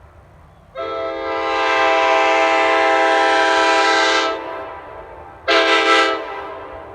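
Nathan Airchime K5LA five-chime train horn, an early-2000s CSX horn, sounding one long blast of about three and a half seconds and then a short blast about a second later. Each blast is a steady chord that dies away after it stops.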